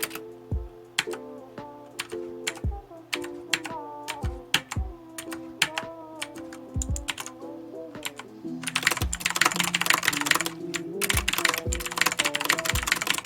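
Redragon Kumara K552 mechanical keyboard with clicky Outemu Blue switches being typed on, over background music. Scattered key presses at first, then, about two thirds of the way in, fast continuous typing that is louder than the music.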